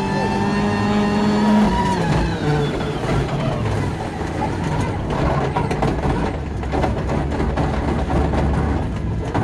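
Turbocharged four-cylinder engine of a 2001 Ford Focus RS WRC rally car, heard from inside the cabin, with the gearbox stuck in sixth gear. It holds a steady note, then the revs drop about two seconds in. After that it runs low under a wash of tyre and road noise with scattered clicks and knocks.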